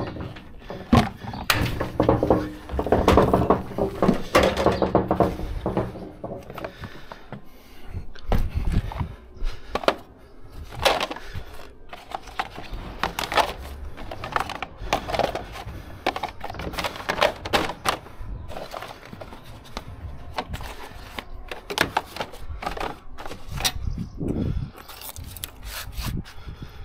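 A run of clatters, knocks and scrapes as load-securing gear is handled: hard plastic ratchet-strap corner protectors knocking together as they are stacked into a crate, and metal and wood knocking on the trailer's aluminium chequer-plate floor. A hum with a steady pitch sounds for a few seconds near the start.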